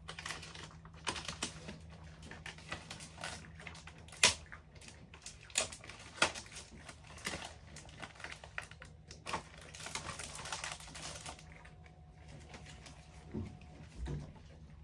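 Plastic food packaging and bags crinkling and rustling as they are handled, with many small clicks and taps and a few sharper snaps, quieter over the last few seconds.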